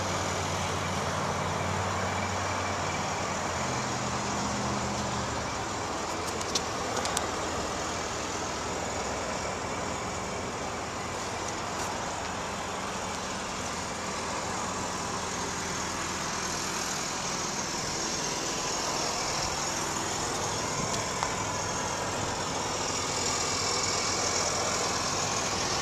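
Steady outdoor vehicle noise, an engine running with traffic hum, with a low engine drone during the first five seconds and two faint clicks about six to seven seconds in.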